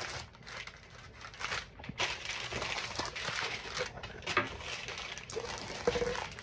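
Packaging being opened and handled by hand: irregular crinkling and rustling with scattered small clicks and knocks.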